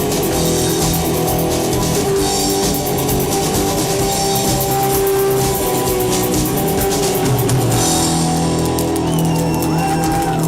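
Rock band playing live, with a drum kit and guitars carrying on without a break.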